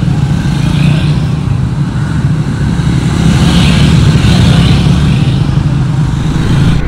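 Several Triumph 400 single-cylinder motorcycles, Speed 400s and Scrambler 400 Xs, riding past one after another with their engines running as a group sets off.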